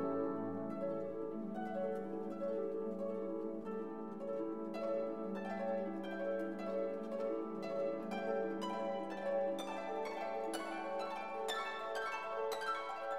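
Instrumental background music: quick plucked-string notes over a held low tone, the notes coming thicker and brighter from about halfway through.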